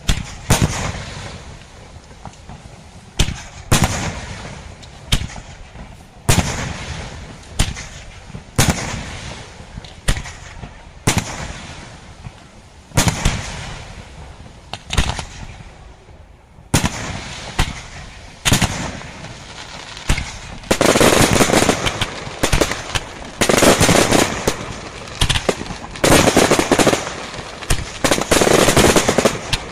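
Aerial firework shells bursting in a display, a sharp bang roughly every second, each trailing off in echo. About two-thirds of the way through, a dense rapid-fire barrage of bursts takes over, louder and almost continuous with brief gaps.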